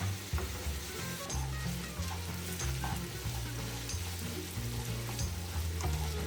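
Ground beef and onions sizzling in a frying pan as they are stirred, with scattered clicks of the utensil against the pan. Background music with a low bass line runs underneath.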